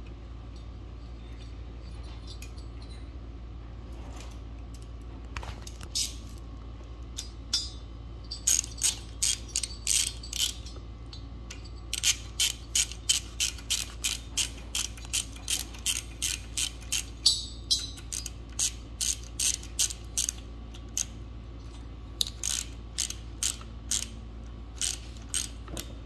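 Ratchet wrench clicking in quick back-and-forth strokes as it tightens the cylinder head nuts on a Suzuki LT80's engine. The clicks start about six seconds in and come in runs with short pauses.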